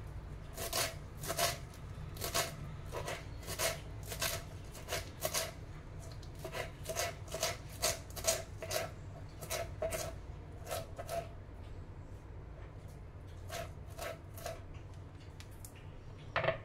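Kitchen knife chopping fresh coriander on a wooden cutting board, quick knocks of the blade on the board about two or three a second. The chopping thins out about eleven seconds in, with a few more strokes later and one louder knock near the end.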